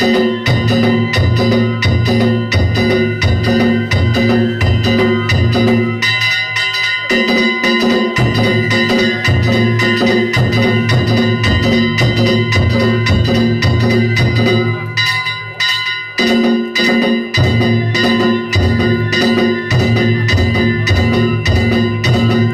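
Danjiri festival music (narimono): a taiko drum beaten in a fast, steady rhythm with small kane gongs clanging and ringing over it. The drum drops out briefly twice.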